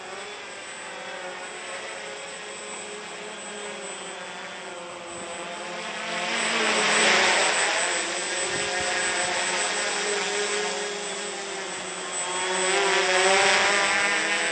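Walkera Hoten-X quadcopter's four brushless motors and propellers whirring, the pitch wavering as the throttle changes. It grows louder about six seconds in as the craft comes in close and low, and stays loud to the end.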